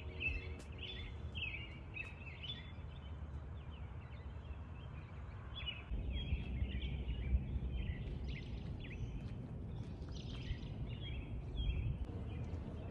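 Birds chirping in short, repeated calls over a steady low outdoor rumble.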